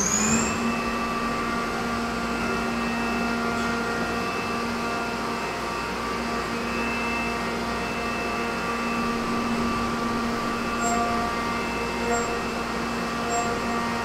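Enshu GE460H horizontal machining center's spindle whining steadily at high speed, finishing its spin-up in the first moment, with a hiss of coolant spraying inside the enclosure. A few faint short tones come and go near the end.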